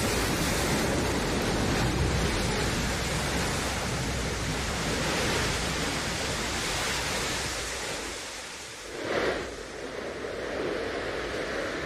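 Rocket engine noise from the New Shepard booster's BE-3 engine, a steady rushing roar. It fades about eight seconds in, swells briefly again a second later, and then carries on at a lower level.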